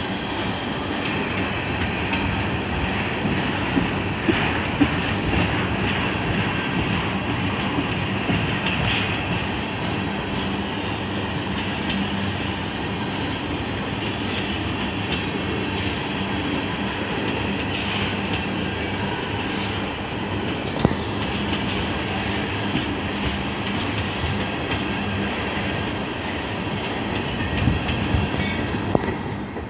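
Freight train tank cars rolling past close by: a steady rumble of steel wheels on rail, with a few short sharp clicks scattered through it.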